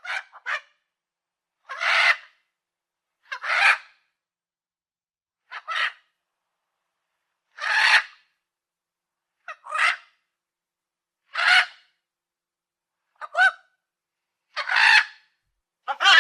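Parrot giving a series of short, harsh squawks, about one every two seconds, some of them doubled, with silence between calls.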